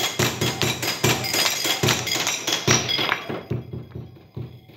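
Upbeat music with a fast, steady beat and hand-clapping, fading out about three seconds in and leaving faint clinks.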